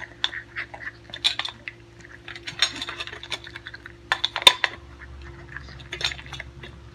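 Two miniature schnauzer puppies eating dry kibble from stainless steel bowls: irregular clinks and rattles of kibble, muzzles and teeth against the metal, with one sharp clink about four and a half seconds in.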